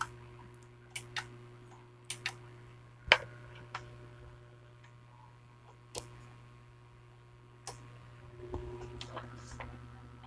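Sparse, irregular light clicks and taps from tools being handled against a TV's circuit board, the sharpest about three seconds in and a small cluster near the end, over a steady low hum.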